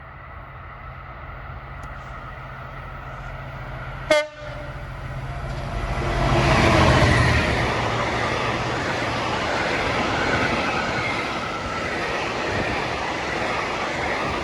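Class 66 diesel-electric locomotive hauling a freight train approaching and passing. A low engine drone grows steadily louder, with one brief sharp blip about four seconds in. The locomotive passes at its loudest around seven seconds in, and then the wagons run by with a steady rumble.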